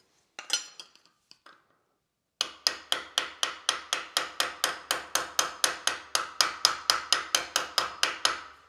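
Small hammer tapping lightly and quickly on a folded aluminium sheet part held against a steel bench-vice jaw, about five even taps a second for several seconds after a single clink. The light taps are dressing out a slightly flared bottom lip of the folded part.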